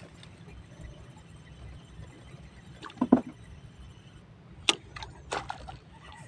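A few sharp knocks and clicks from hands working a spinning reel and rod, over faint background noise. The loudest is a double knock about three seconds in, with sharper clicks a couple of seconds later.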